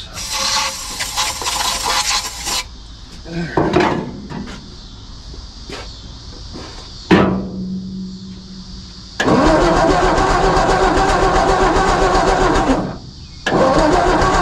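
A brief hiss of aerosol starting fluid sprayed into the carburettor of a 1954 Ford F-250's engine, then the engine cranking over on its starter in two long bursts, a steady rhythmic churning with a short break between them. The engine does not catch. A single click comes about seven seconds in.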